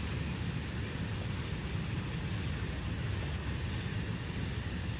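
CSX freight cars rolling past on the rails: an unbroken, steady rumble of wheels on track, heaviest in the low end.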